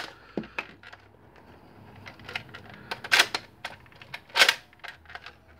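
Hard plastic clicks and clacks from a Nerf Vortex Proton disc blaster being worked by hand, loading discs from its 3D-printed hopper; two louder clacks come a little past halfway.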